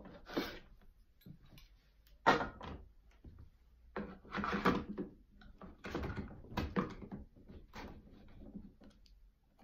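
Hand wool combs, metal tines on wooden handles, being swapped on a clamped comb holder: a handful of knocks, clunks and scrapes, the loudest about two seconds in.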